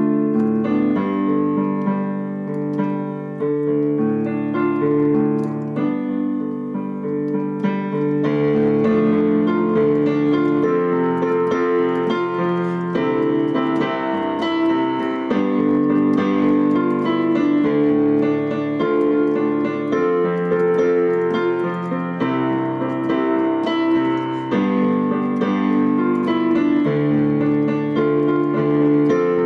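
Digital piano keyboard played with both hands on its built-in piano voice: a piece of sustained chords and a melody that changes every second or so. The playing grows fuller and brighter about eight seconds in.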